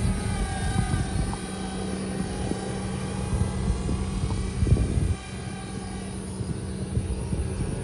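Micro RC foam model Boeing 727 flying overhead: the thin whine of its small electric motor and propeller, wavering slightly in pitch, over a low rumble of wind on the microphone. The sound drops a little quieter about five seconds in.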